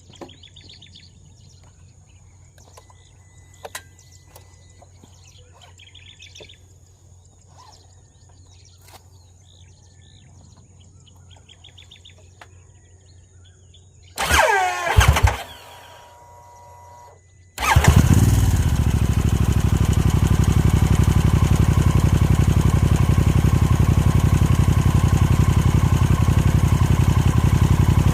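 Birds chirp faintly over quiet outdoor background. About 14 s in there is a brief loud burst with sliding pitch. About 17.5 s in, the Harley-Davidson Sportster S's Revolution Max 1250T V-twin starts and settles into a steady loud idle.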